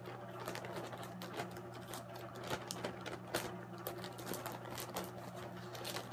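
Thin plastic Robo Worm soft-bait bag being handled and crinkled by hand: a stream of small irregular crackles and clicks over a steady low hum.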